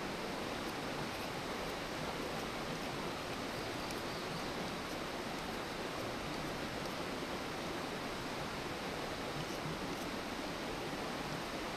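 Campfire burning: a steady hiss with faint, scattered crackles.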